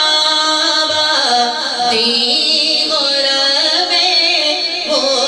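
A male naat reciter singing into a microphone over a sound system: a solo voice in long held notes with ornamented turns of pitch.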